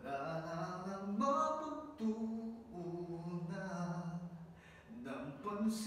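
A man singing a cappella, drawing out long held notes that slide and step between pitches. There are short pauses between phrases, about two seconds in and again near the end.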